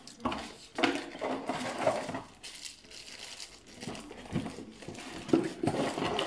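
Packaging being handled: clear plastic bags crinkling and cardboard flaps rustling and scraping as small ring-light parts are taken out of the box, in uneven bouts of rustling with sharper clicks and taps.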